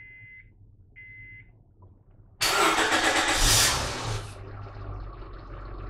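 Two short dashboard chimes, then a 2007 Honda Accord's engine is started: a loud burst of cranking and catching about two and a half seconds in, settling into a steady idle.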